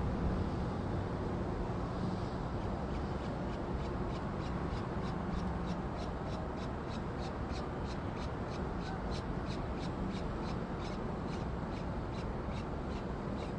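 Peregrine falcons calling at the nest: a regular series of short, high-pitched peeps, three or four a second, beginning a few seconds in, over a steady low background rumble.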